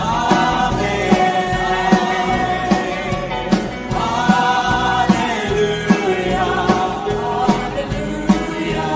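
Live gospel worship song from a band on an outdoor stage: several voices singing long, held notes over a steady drum beat.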